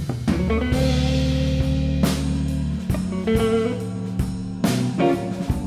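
Live blues band playing an instrumental: a Les Paul-style electric guitar through a Divided By 13 RPB 19/37 amp holds and bends lead notes over bass, keyboard and a drum kit. Cymbal crashes land three times, about two seconds apart.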